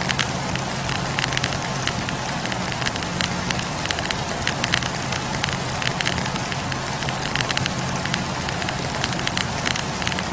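Wood campfire crackling, with frequent irregular sharp pops and snaps over a steady low rumble of the flames.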